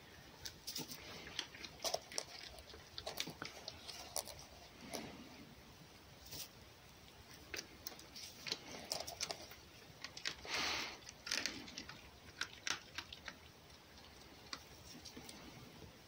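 Red fox eating small pieces of crumbled, partly frozen poultry meat from a hand: faint, irregular clicks and small crunches of nibbling and chewing, with a short louder rustling burst about ten seconds in.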